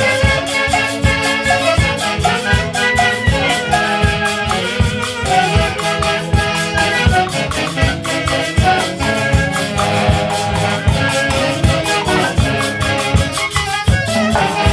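Live music from a Huancayo orquesta: wind instruments playing a melody over a steady, even percussion beat.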